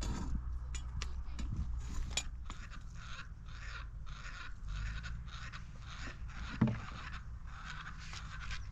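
Rhythmic scraping strokes, about three a second, with one sharp knock about two-thirds of the way through.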